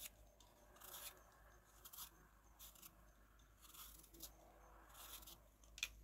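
Hand peeler blade drawn through apple skin: faint, short scraping strokes about once a second as the peel comes off.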